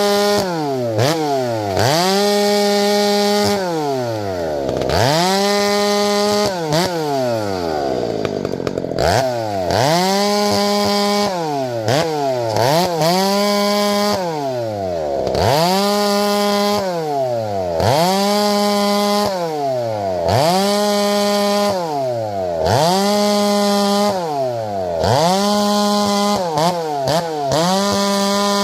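Two-stroke chainsaw repeatedly throttled up to a high, steady whine and let back down to idle, about once every two seconds, a dozen or so times, with one longer dip to idle about eight seconds in.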